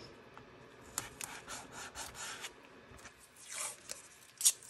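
Blue painter's tape being laid over a plastic stencil and rubbed down by hand: soft rubbing and swishing with a few light ticks, and one short sharp crackle near the end.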